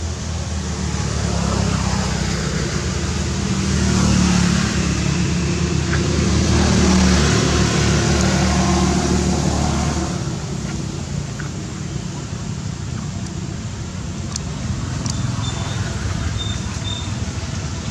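Low rumble of a motor vehicle's engine, swelling over the first few seconds and fading away about ten seconds in, over steady outdoor background noise. A few faint high chirps come near the end.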